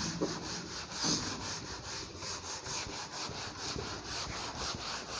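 Eraser rubbed back and forth across a whiteboard, wiping off marker writing in quick, evenly repeated strokes.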